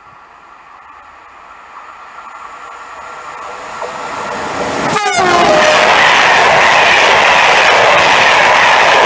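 Corail passenger train hauled by a BB 22200 electric locomotive approaching and growing louder, then a brief horn blast about five seconds in whose pitch drops as the locomotive passes. The coaches then rush by loudly and steadily.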